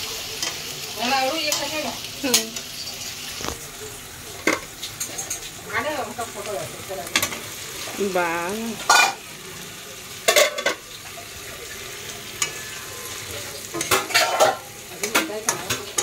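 Spice masala sizzling in a hot iron kadai while a metal spatula scrapes and stirs it, with sharp knocks of the spatula against the pan. About halfway through, potato and drumstick pieces are tipped in from a steel plate with a clatter, and the stirring and knocking go on.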